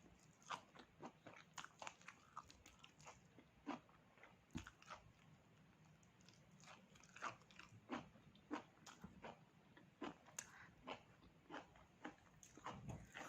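Faint, close-up chewing and biting of pork: irregular small crunches and wet mouth clicks, several at a time with short pauses between.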